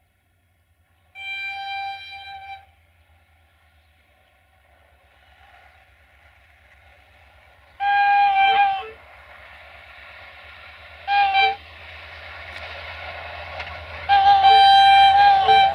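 Diesel locomotive horn sounding four blasts as the train approaches: one about a second in, a second around eight seconds, a short one near eleven seconds, and a long one near the end. Underneath, the rumble of the locomotive's engine and wheels on the rails grows steadily louder.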